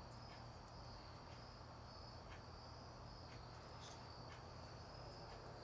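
Near silence: room tone with a faint, steady, high-pitched trill and a low hum, with a few soft taps as small plastic paint cups are handled.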